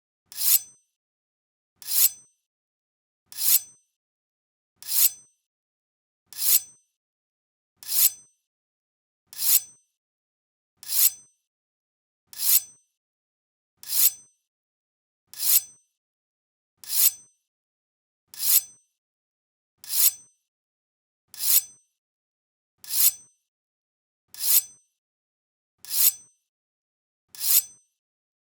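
A Japanese sword (katana) drawn from its scabbard, over and over: a short sliding scrape of the blade that swells quickly and ends sharply with a brief high ring, about every second and a half.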